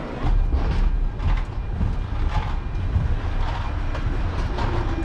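Steady low rumble with irregular knocks and clatter, the sound of walking down an airport jet bridge to board the plane.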